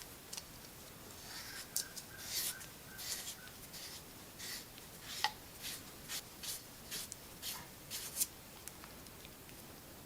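Strip of sandpaper rubbing and scraping inside a copper cable lug, a run of short, irregular scratching strokes that stop about eight seconds in; the lug is being cleaned out for soldering.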